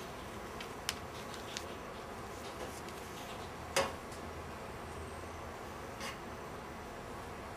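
Quiet room hiss with a few scattered small clicks and taps, the loudest just before four seconds in.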